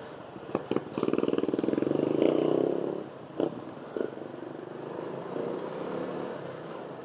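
Motorcycle engine pulling hard for about two seconds with rapid firing pulses, then easing back to a quieter steady run. A few sharp clicks or knocks come before and after it.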